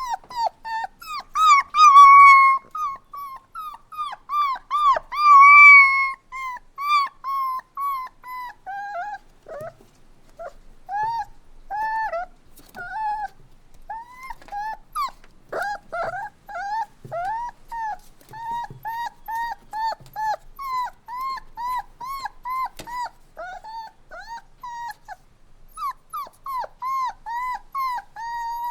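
Puppies crying: rapid high-pitched whimpers and whines, several a second, with two louder drawn-out cries in the first few seconds.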